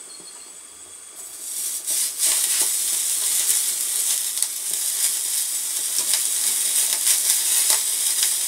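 Raw beef minute steak laid on the preheated grate of a gas-fired stainless-steel camping grill, starting to sizzle about a second in and then sizzling steadily and loudly, with a few light clicks of the fork on the grate.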